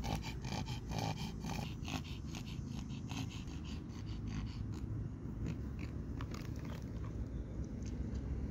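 A Pomeranian snuffling and sniffing close to the microphone, a quick run of breathy snorts in the first two seconds, then sparser clicks, over a steady low rumble.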